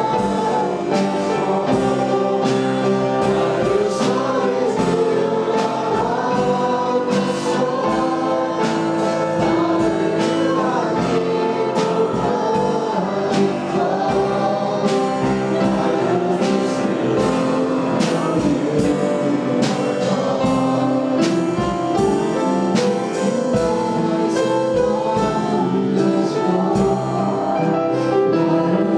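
Worship band and singers performing a gospel-style praise song, voices together over instruments with a steady beat.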